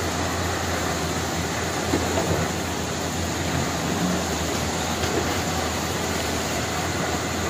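Steady rushing of a fast-flowing flood river, an even wash of water noise with no breaks.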